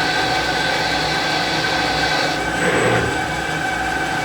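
CNC lathe running a turning operation: a steady machine hum with a hiss that stops a little past halfway, followed by a brief louder rush of noise.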